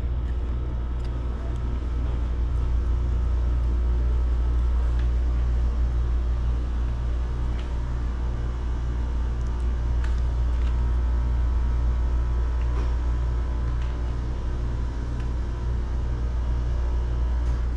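Steady low machine-like rumble with a faint regular pulsing just above it, running unchanged throughout, with a few faint ticks.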